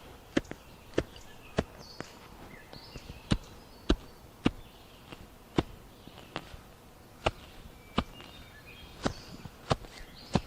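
Footsteps walking, sharp steps roughly every 0.6 s in short runs with brief pauses, over faint high chirps.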